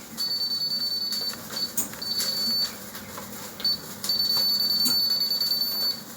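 Trojan treadmill console beeping: a high steady beep held for about a second, a few short beeps, then a long beep of about two seconds near the end, as its buttons are pressed and held.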